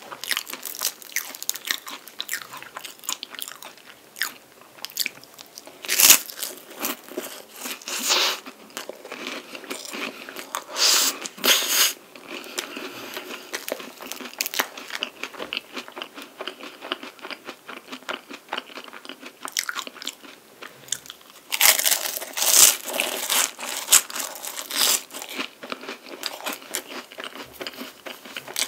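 Close-miked biting and chewing of a chocolate-coated palmier carré, a flat crisp puff pastry: a continuous crackle of chewing, with several louder bursts of crunching, the longest about two-thirds of the way through.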